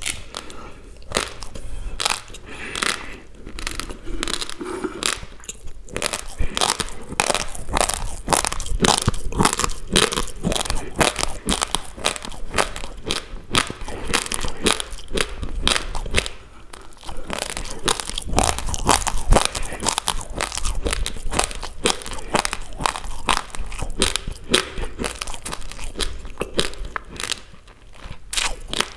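Close-miked crunching of raw basmati rice grains being chewed: rapid, dense crunches that barely let up, with short lulls a little past halfway and near the end.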